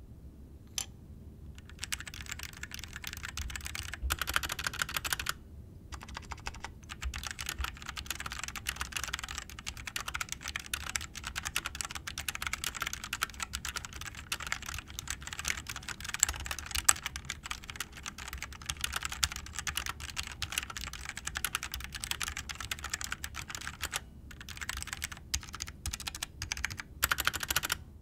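Typing on a GMMK Compact 60% mechanical keyboard fitted with Kailh Pro Purple tactile switches: a fast, continuous patter of keystrokes. It pauses briefly a few seconds in and again near the end.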